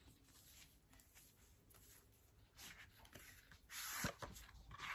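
A cardboard album box being handled and opened: faint rustling, then a louder scrape with a click about four seconds in, and another scrape near the end.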